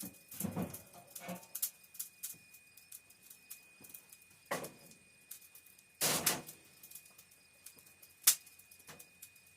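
Grill parts being handled at a kamado grill: scattered knocks, clunks and scrapes, with a longer scrape about six seconds in and a sharp knock just after eight seconds.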